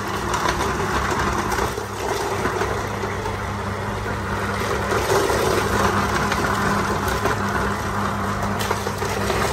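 Cast-iron size-32 twin-belt-driven meat grinder running steadily, its electric motor humming while fish heads and bones are forced through the auger and crushed out through a coarse plate.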